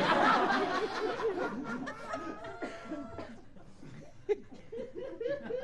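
Live audience laughing at a punchline. The laughter is loudest at the start and dies away over the next few seconds, leaving a few scattered laughs and chuckles.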